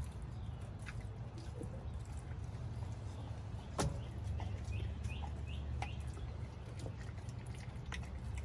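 Pit bull chewing a raw whole chicken: scattered crunches and clicks, with one sharper crack a little before halfway, over a steady low rumble. A few short bird chirps sound just after the crack.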